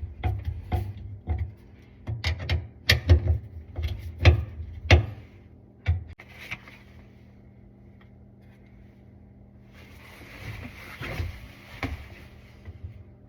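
A quick run of sharp knocks and clanks, as a garbage disposal unit and its fittings are worked on, for about five seconds; about ten seconds in comes a brief hissing rush.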